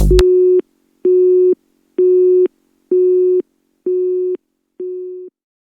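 Telephone busy tone: a steady low beep, half a second on and half off, sounding six times about once a second. The last two beeps fade out.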